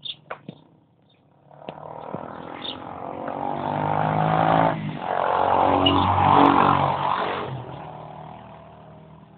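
Engine of a two-wheeled vehicle passing by. It grows louder from about a second and a half in, is loudest in the middle, then fades as it moves away.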